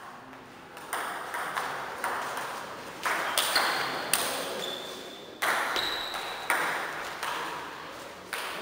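Table tennis rally: the celluloid ball clicks sharply off bats and table several times, about one to two seconds apart, each hit trailing off in the echo of a large hall.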